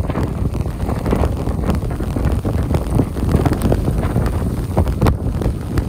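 Wind buffeting the microphone in gusts, a loud low rumble over the low rumble of a jet airliner on the runway.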